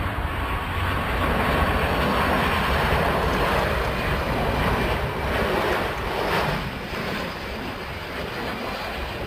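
Jet engines of a Ryanair Boeing 737 on landing, passing close by: a steady rushing that swells over the first second or so and eases a little after about six seconds as the airliner touches down.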